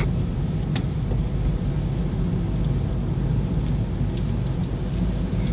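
Steady low rumble inside a moving car's cabin: engine and tyres on a wet road at about 55 km/h in rain.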